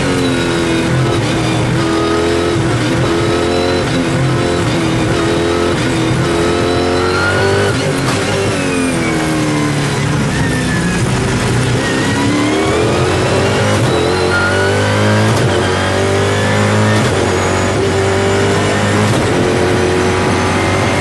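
Mosler race car's V8 engine at racing speed, heard from inside the cockpit: revs climb through the gears, fall away under braking about eight seconds in, then climb again through several upshifts as the car accelerates out of the corner.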